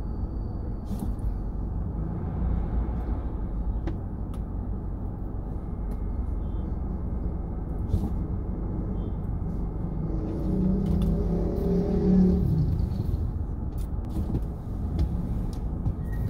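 Steady low rumble of vehicle engines in slow town traffic, with an engine revving up and dropping back about ten seconds in.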